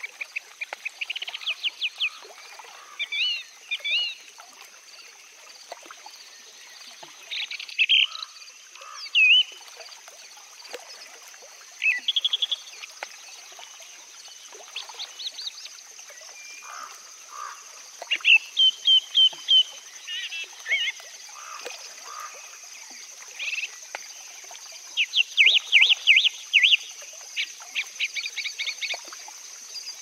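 Several songbirds singing in a garden: short whistled phrases with quick rising and falling notes and runs of rapidly repeated notes, coming every few seconds. A steady high hiss runs underneath.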